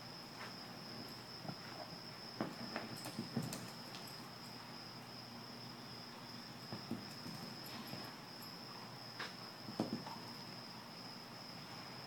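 A cutting horse's hooves thudding irregularly in soft arena dirt as it stops, turns and shifts, with clusters of hoofbeats about a third of the way in and again near the end. A steady high-pitched tone, like an insect trill, runs underneath.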